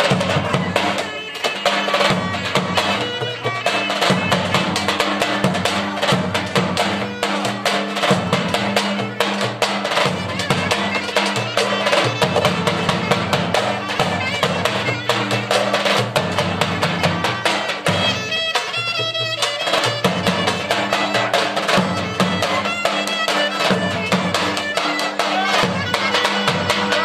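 Davul bass drum and a reedy wind instrument playing lively Turkish folk music, with a steady, driving drumbeat under the melody.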